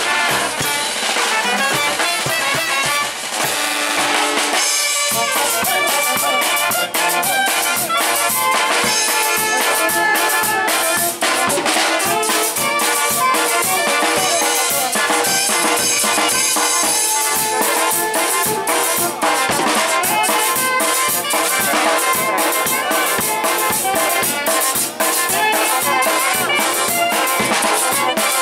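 Live Peruvian brass band playing a huayno: trumpets carry the melody over tuba, saxophone and drums. About five seconds in, the drum kit, bass drum and cymbals grow dense and steady under the brass.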